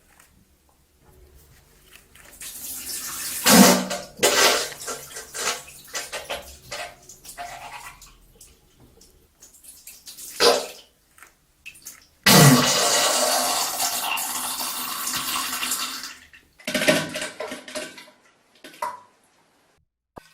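Diarrhea sound effects: a run of wet, sputtering, splattering bursts with short gaps between them, two of them lasting a few seconds each and the rest brief.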